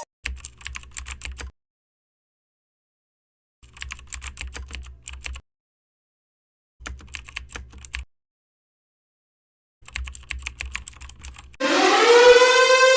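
Four short bursts of rapid computer-keyboard typing clicks, each a second or two long, separated by dead silence. Near the end a warning siren starts, rising in pitch as it winds up.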